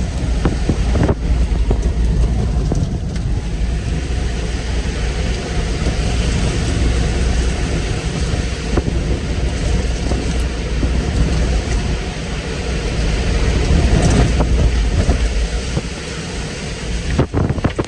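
Tornado winds rushing and buffeting the microphone in a loud, steady roar with a heavy low rumble, with scattered knocks from flying debris, a cluster of them near the end.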